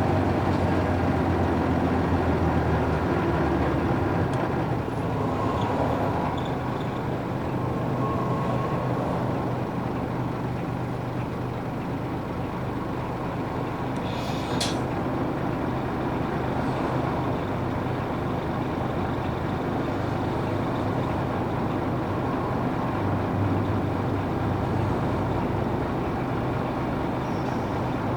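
Isuzu UA440 city bus with its PF6 six-cylinder diesel running under way, the engine note easing off a few seconds in. About halfway through comes a short hiss of released compressed air, typical of the bus's air brakes.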